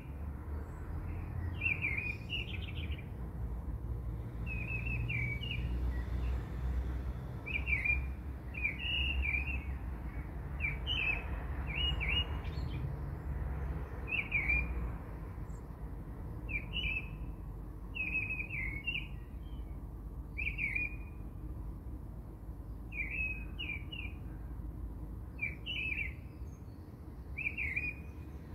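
A small bird chirping in short repeated calls, about one every second, over a steady low rumble.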